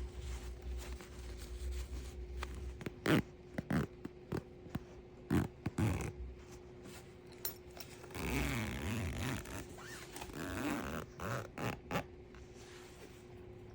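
Handling of a plastic no-sew zipper pull on a cushion's zipper and fabric: a series of sharp clicks and knocks, then a longer stretch of scraping and rustling in the second half. A faint steady hum runs underneath.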